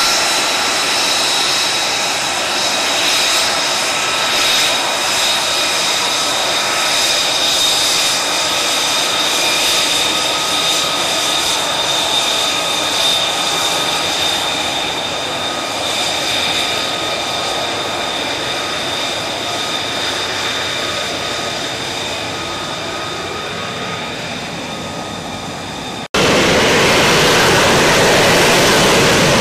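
F-35B's jet engine whining steadily with high-pitched tones, slowly growing quieter. About 26 seconds in, the sound cuts suddenly to a louder, rougher jet roar.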